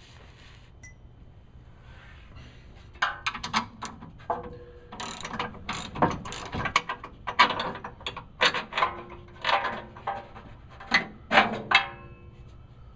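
Hand ratchet wrench turning bolts in short bursts of clicking, starting about three seconds in and stopping shortly before the end.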